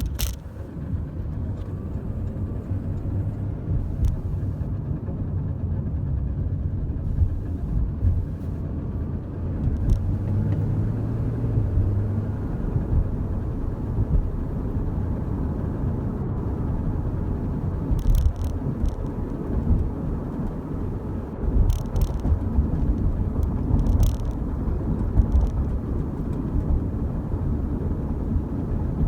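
Porsche Cayman 981 running with a steady low rumble, with a few short sharp clicks in the second half. The owner finds a noise from the car strange but does not identify it.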